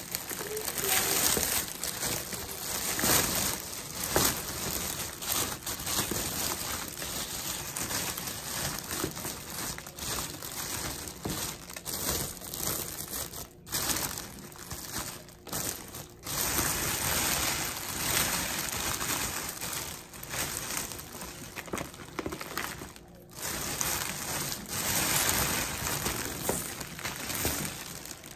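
Clear cellophane gift-basket bag crinkling and rustling as it is pulled up around a filled basket and gathered at the top, with a few brief pauses.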